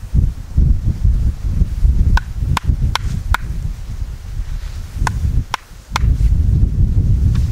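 Wooden mallet striking a splitting tool held on the end of an upright log, driving it in to split the log: four sharp knocks in quick succession, a pause, two more, then a faint one near the end. A strong low rumble runs underneath.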